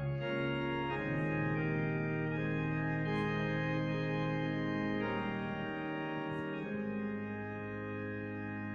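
Church organ playing slow, held chords that change every few seconds.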